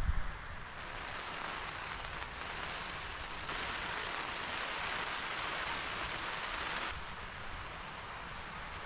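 Steady rushing hiss of a flowing stream. It changes abruptly at about 1 s, is brightest from about 3.5 s to 7 s, then drops back.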